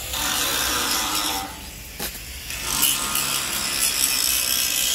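Electric arc welding on a steel truss frame: the arc runs with a hissing buzz, stops for about a second, then starts again and cuts off suddenly near the end.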